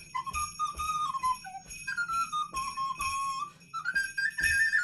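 Recorder playing a lively tune, the melody stepping up and down in short notes. Under it, bells worn on the player's feet jingle and his feet thump as he jumps in time.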